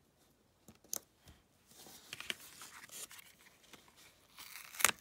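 Cardstock being handled and shifted on a craft mat: a few light clicks, then soft paper rustling, with a louder rustle of paper just before the end.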